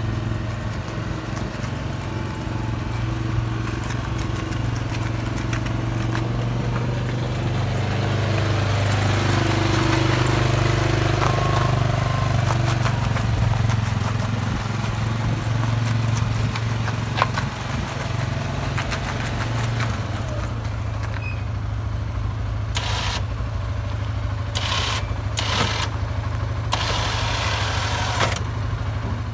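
2006 Arctic Cat 500 ATV's single-cylinder four-stroke engine running as the quad is driven around. It is louder for a while in the middle and settles lower for the last third, with a few short hissy bursts near the end.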